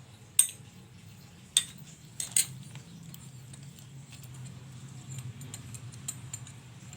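Small metal exhaust turbo whistle being handled and opened by hand: a few sharp metallic clicks and clinks in the first two and a half seconds, then lighter scattered ticks, over a steady low hum.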